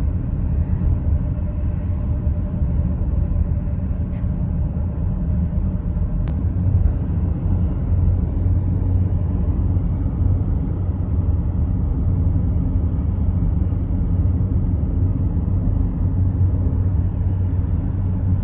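Steady low rumble of a car driving along a road, heard from inside the cabin: tyre and engine noise. There are a couple of faint clicks about four and six seconds in.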